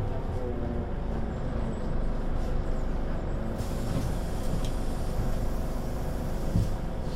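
Scania Citywide LE city bus running steadily, its engine humming with faint steady tones. About three and a half seconds in, a hiss of air joins and lasts for about four seconds; a short thump comes near the end.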